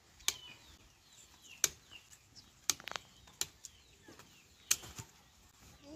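A knife chopping into a sugarcane stalk: five or six sharp cracks at irregular intervals as the rind and stalk are cut. Birds chirp faintly in the background.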